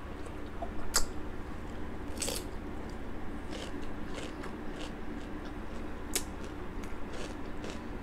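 Close-miked chewing of crunchy raw cucumber, with sharp crunches about a second in, around two seconds in and about six seconds in, and softer crunching between, over a steady low hum.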